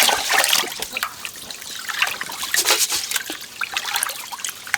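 Water trickling and splashing in small irregular bursts.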